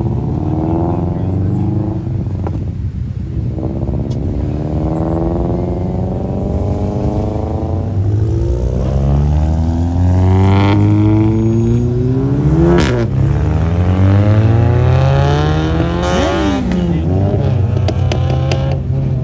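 Performance car engines revving and accelerating away one after another, their pitch climbing and dropping back with each rev and gear change. A low rumble from other running cars continues underneath. One rev peaks sharply high about two-thirds of the way through.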